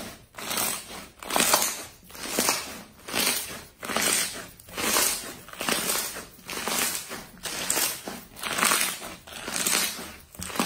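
Slime being squeezed and pressed by hand over and over, in a steady rhythm of about one press every three-quarters of a second.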